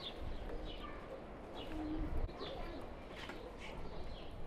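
Birds calling: a run of short, falling chirps repeated every half second or so, with a low dove-like coo about two seconds in.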